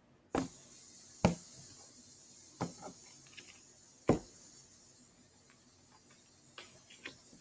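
Tarot deck tapped and squared on a wooden table, making about four sharp knocks spaced roughly a second apart, then a couple of fainter taps near the end.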